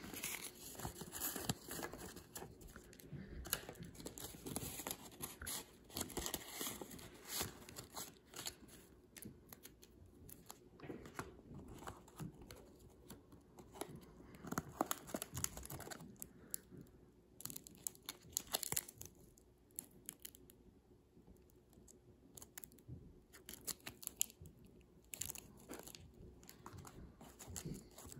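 Paper and clear plastic wrap being handled while a handmade cardstock box is opened and emptied. Irregular rustling and crinkling, with light taps and clicks of card.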